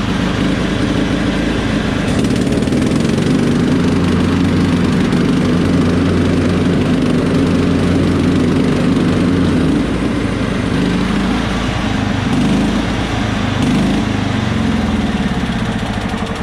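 John Deere STX-38 riding mower running steadily with its PTO engaged and the mower deck turning, its engine note shifting a little in pitch in the second half. It keeps running with the PTO on even though the seat safety switch has been bypassed.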